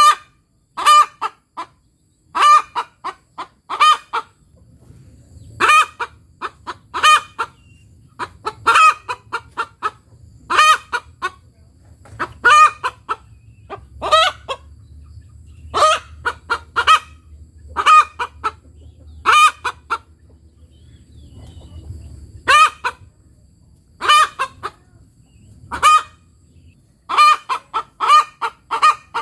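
Indonesian village hen (ayam kampung) cackling, a loud, high-pitched 'tok tok petok' repeated in short groups of notes with brief pauses. This cackle is typical of a hen that has just laid an egg, though hens also give it when something startles them.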